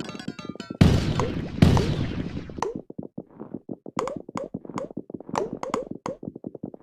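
Many marbles rolling down a marble-run track, clattering and clicking rapidly against the track and each other. There are a few heavier knocks, and some strikes leave a brief ringing tone.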